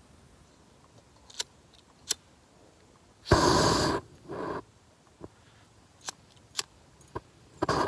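A hand lighter struck several times at a canister backpacking stove on an isobutane-propane fuel canister, with sharp clicks. About three seconds in there is a loud, short rush of gas that dies away, and just before the end the burner catches and burns with a steady rushing noise.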